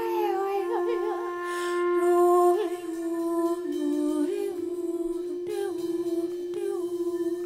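Contemporary chamber music for voice, instruments and live electronics: one steady held tone with higher pitches layered above it that waver and slide downward.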